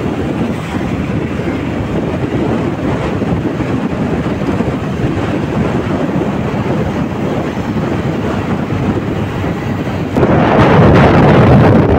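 Wind buffeting the microphone on a moving motorcycle, with engine and road noise underneath. It gets louder about ten seconds in.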